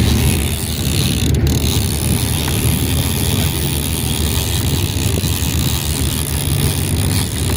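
Fishing boat's engine running steadily under way: a low, even drone with a hiss of wind and water over it.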